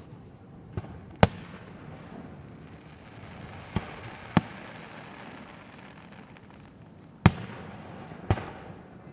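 Aerial fireworks shells bursting: six sharp bangs at uneven intervals, the second and fifth the loudest, each trailing off in a rumbling echo.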